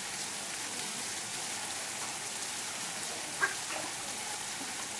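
Steady, even hiss of water, like rain falling on surfaces, with one brief sharp sound about three and a half seconds in.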